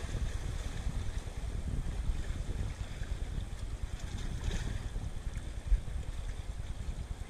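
Wind buffeting the microphone with the wash of waves behind it, a steady rumble with one brief thump a little before six seconds in.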